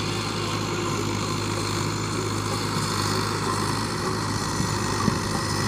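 Fiat 640 tractor's diesel engine running steadily under load, pulling a 16-disc harrow through sand.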